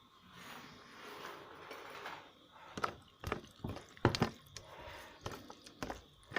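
Eating sounds close to the microphone: a soft rustle of food being mixed and handled, then a run of sharp clicks and smacks from about three seconds in, typical of mouth sounds while chewing and of fingers against a plate.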